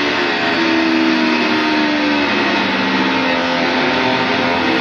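Electric guitar played with a metal slide pressed against the strings: a loud, dense noisy wash in which sustained pitches glide slowly downward.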